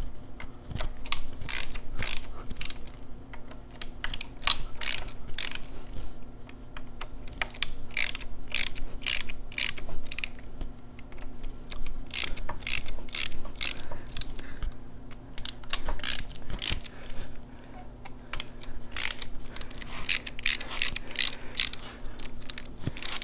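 Hand socket ratchet clicking in runs with short pauses between them as the bolts of a Harley-Davidson Sportster cam cover are backed out.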